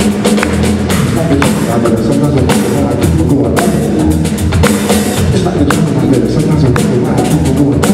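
Live band music with drum kit, electric bass and keyboard playing, the drum hits marking a steady beat.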